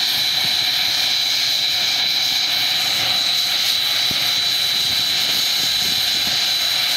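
Aircraft engine running steadily: a constant high-pitched whine over a steady hiss.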